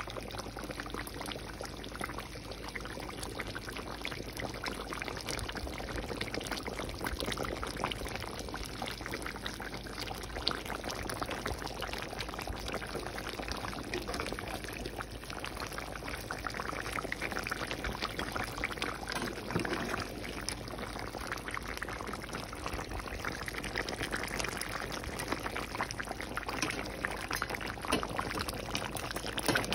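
Chicken curry simmering in a pan on the stove, its gravy bubbling with a steady crackle of small pops.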